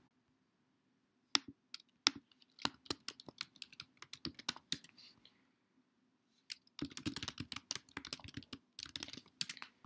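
Pen writing on paper: light, irregular scratchy clicks of the strokes, scattered through the first few seconds and coming thicker again about seven seconds in.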